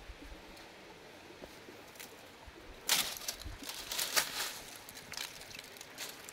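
Dry fallen leaves crunching and rustling in a run of quick crackles, starting about three seconds in and lasting about two and a half seconds.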